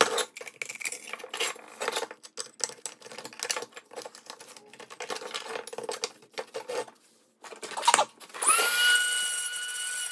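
Rusty metal and plastic parts of a 1970s Tonka cement mixer toy being handled and pulled apart: scrapes, clicks and knocks. About eight and a half seconds in, a handheld rotary tool starts up and runs with a steady high whine.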